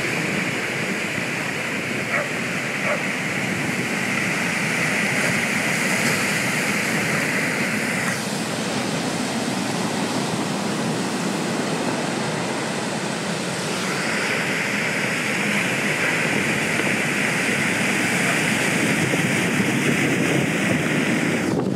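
Steady rushing noise of breaking surf, whose tone brightens and dulls with changes around 8 and 14 seconds in.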